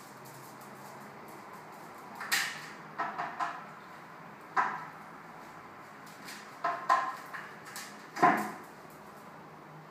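Hooded crow clambering on the rim of a plastic bowl of water: a run of sharp knocks and clatters of plastic against the concrete floor, in small clusters, the loudest near the end.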